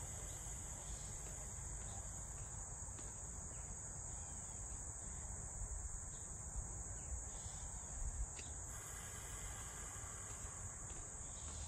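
Steady high-pitched chorus of insects from the summer grass and woods, unbroken throughout, over a low background rumble.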